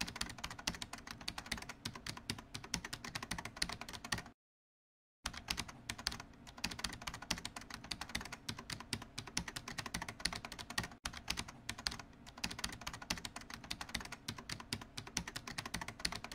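Computer keyboard typing sound effect: a rapid, continuous patter of key clicks, broken by about a second of silence a little after four seconds in.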